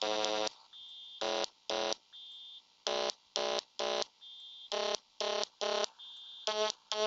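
YM2203 sound chip's SSG channel playing a programmed effect: short buzzy square-wave blips in groups of three, about half a second apart, alternating with a quieter short high beep.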